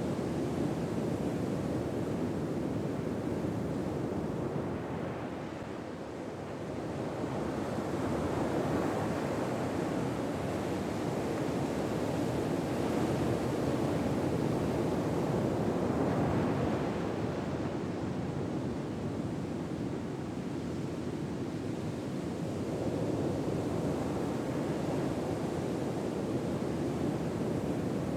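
Ocean waves washing on a shore, a steady wash of surf that slowly swells and eases over several seconds.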